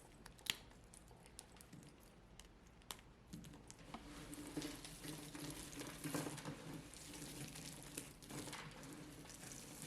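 A brittle dry block crackling and crunching as it is crushed, faint and crisp. It starts as a few sharp snaps, then becomes a denser, continuous crumbling about three and a half seconds in.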